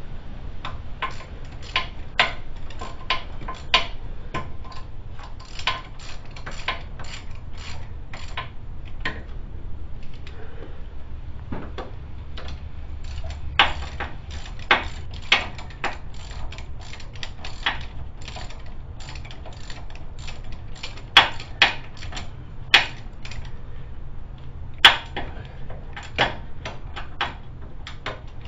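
Hand socket ratchet clicking in short, uneven runs while the bolts holding the new front wheel hub bearing to the steering knuckle are run in, with a few sharper metal clacks from the tool against the hub.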